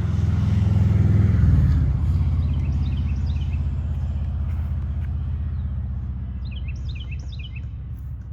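A motor vehicle driving past, loudest about a second and a half in, its engine note dropping as it passes, then slowly fading. Series of quick bird chirps twice over it.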